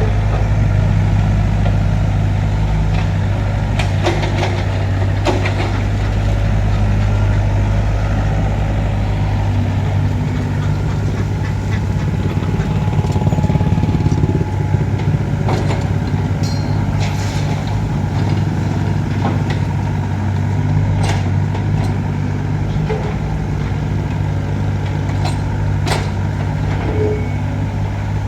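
Heavy diesel engine of construction machinery running steadily, with scattered short knocks and clanks on top.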